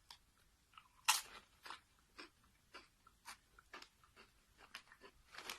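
A person chewing a crunchy chip snack, with a short crisp crunch about twice a second.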